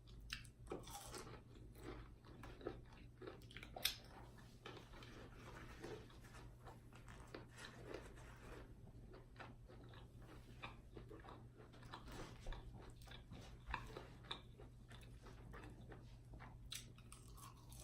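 Close-miked chewing and biting of crisp fried chicken gizzards: irregular small crunches and wet mouth clicks, one sharper crunch about four seconds in.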